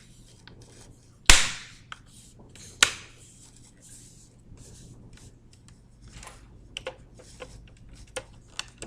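Plastic laptop screen bezel being pressed back onto the display lid, its clips snapping into place: two sharp clicks about a second and a half apart, then a few fainter ticks near the end.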